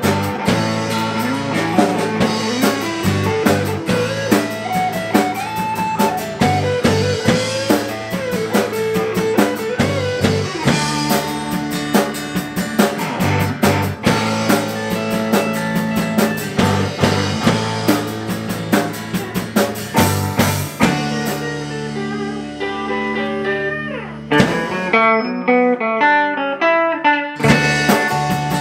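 A band playing with electric and acoustic guitars, bass and drum kit. About 21 seconds in, the drums and bass drop out and leave guitar notes alone, and the full band comes back in near the end.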